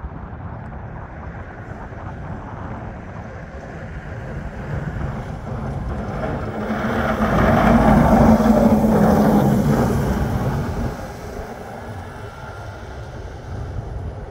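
Fendt tractor with a front snow-plough blade passing close by, its diesel engine running under load as the blade pushes snow along the road. The engine and the noise of the blade grow louder, peak about eight seconds in, then fade as it moves away.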